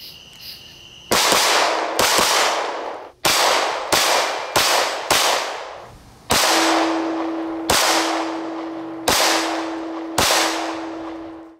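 Ten shots from a 9mm handgun fired at an uneven pace, some about a second apart and a quick run of four about half a second apart, each trailing a long echo that fades over a second or more.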